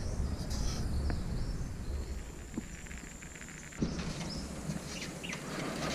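Quiet rural outdoor ambience: a steady low rumble with faint insect calls and a few light ticks, changing abruptly about four seconds in.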